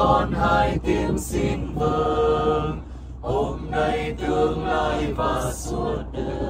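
A group of voices chanting a Catholic prayer together in unison, in the sing-song recited manner, with brief pauses between phrases. A steady low rumble from the moving vehicle runs underneath.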